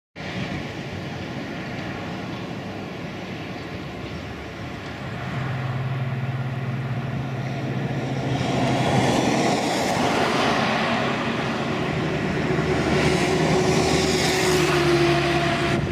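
Boeing 777-200ER's jet engines running at taxi power: a steady rushing noise with a low hum that grows louder about five and again about eight seconds in, with a higher whine in the last few seconds.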